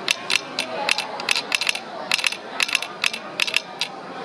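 Telegraph hand key and sounder clicking out Morse code in irregular groups of sharp clicks, a railroad telegrapher spelling out "CamericaTV".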